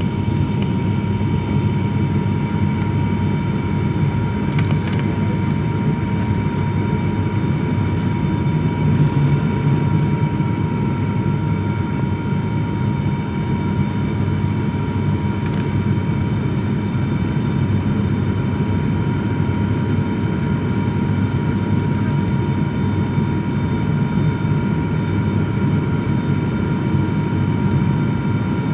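Steady airliner cabin noise from inside a passenger plane: a dense, even engine and airflow rumble with a thin steady whine above it, unchanging throughout.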